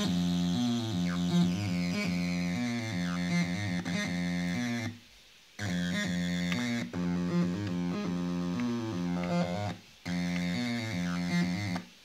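ML-303, a TB-303-style bass synthesizer with a software oscillator on an ARM microcontroller, playing a repeating acid bassline sequence, its upper tones sliding as the filter moves. The pattern stops for under a second about five seconds in, and briefly again near ten seconds and near the end.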